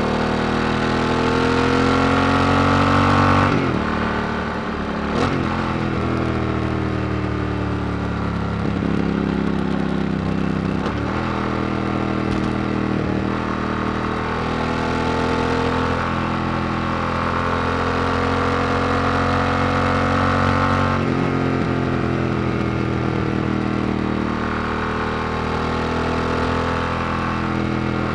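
Yamaha XT1200Z Super Tenere's 1200 cc parallel-twin engine on the move through a Yoshimura RS-4 exhaust with the baffle out. The engine note climbs steadily in pitch and drops at gear changes about 3.5, 11 and 21 seconds in. After the first shift the pitch falls briefly as the engine runs on the overrun.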